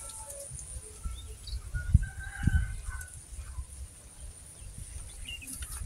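A rooster crowing faintly about two seconds in, over a low gusty rumble.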